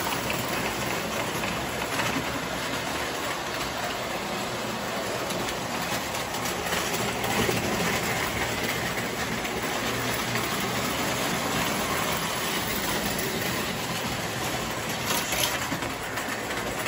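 Three-rail toy electric trains, among them a toy steam locomotive, running on metal track: a steady running noise of wheels and motors.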